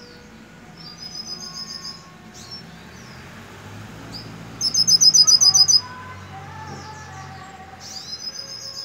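Young hooded siskin (pintassilgo) singing: high, rapid metallic trills with thin chirps between, the loudest a burst of about a dozen fast notes lasting about a second, midway through.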